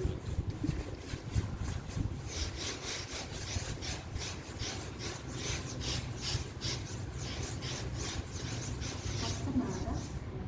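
Rhythmic scraping or rubbing strokes, about three a second, starting about two seconds in, over a steady low rumble.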